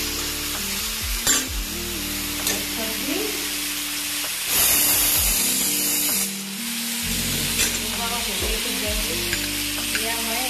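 Vegetables sizzling in an oiled kadai while they are stir-fried with a perforated metal spatula, with a few sharp scrapes and clicks of metal on the pan. The sizzle swells louder about four and a half seconds in for a couple of seconds, then settles back.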